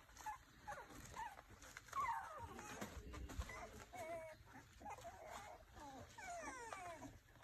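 Young puppies whining and squeaking: many short, high-pitched cries, several sliding down in pitch, overlapping one another.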